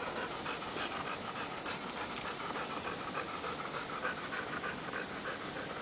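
A Labrador retriever panting hard in a quick, even rhythm.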